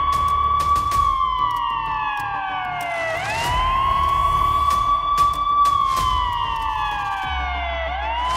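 Emergency siren wailing in slow cycles: the pitch rises quickly, holds high for a couple of seconds, then slides slowly down before rising again, about once every five seconds.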